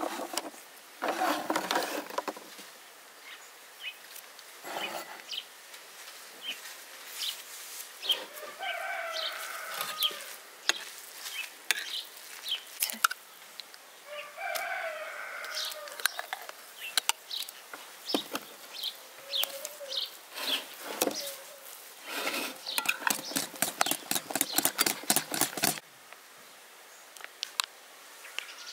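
Hens clucking and a rooster crowing a few times in the background, over scattered clinks of a spoon on a plate and a wire whisk in a glass bowl. Near the end there is a few-second run of fast, even whisk strokes against the glass.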